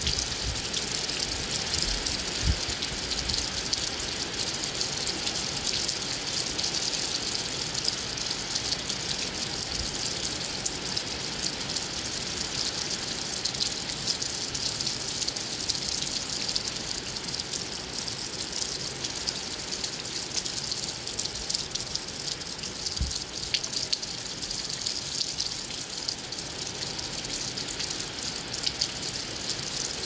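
Heavy rain falling steadily, an even hiss that holds without letting up.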